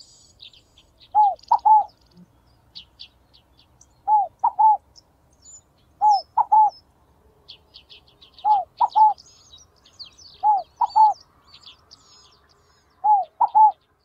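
Scaly dove (rolinha-fogo-apagou) singing its three-note "fo-go-pa-gou" call, six phrases about every two seconds. Faint high chirping from small birds goes on in the background.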